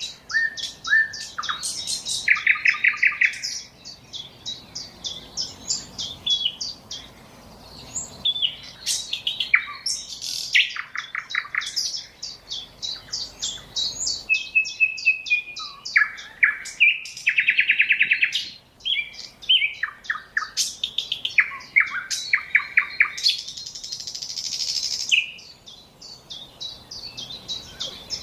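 Songbird singing continuously, a run of quick chirps and rapid trills, with a two-second hiss near the end.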